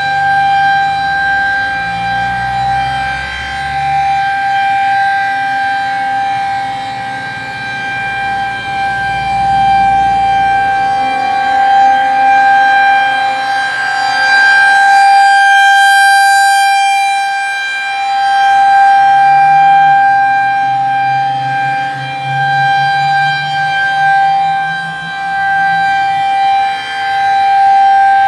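Outdoor tornado warning siren wailing on one steady high pitch with many overtones, swelling and fading in loudness; it is sounding for an equipment test.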